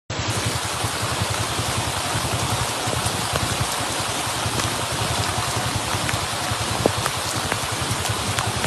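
Heavy rain pouring steadily onto a flooded street, with scattered sharper drop ticks and a low rumble underneath.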